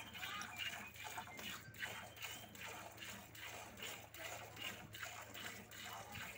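Cow being milked by hand into a steel bucket: milk streams squirting into the milk already in the pail in a steady rhythm, about two or three squirts a second.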